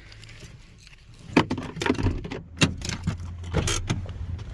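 Car keys jangling with a run of sharp clicks and knocks of handling, over a low steady vehicle hum that sets in about two seconds in.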